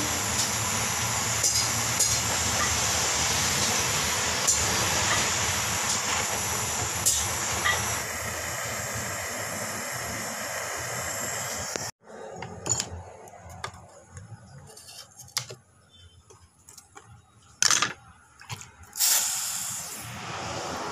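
Handheld gas soldering torch burning with a steady hiss as it heats a jewellery piece for soldering. The hiss cuts off suddenly about twelve seconds in, leaving scattered clicks and knocks and two short bursts of noise near the end.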